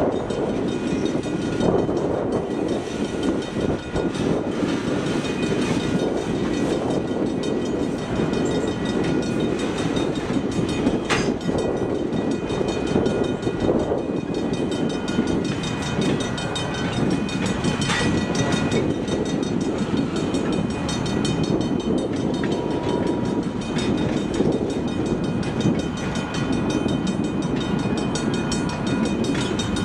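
Freight train's covered hoppers and tank cars rolling steadily past, their steel wheels rumbling and rattling on the rails. A couple of sharp clanks come about 11 and 18 seconds in.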